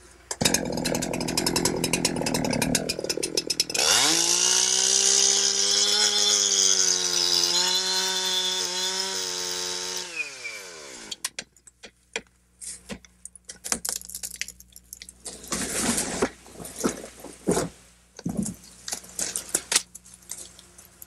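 Two-stroke chainsaw making the release cut that frees a tree for felling: rough and rattling at first, then from about four seconds in running at full throttle for some six seconds before the revs fall away. After that comes a run of cracks and crashes as the tree breaks loose and falls.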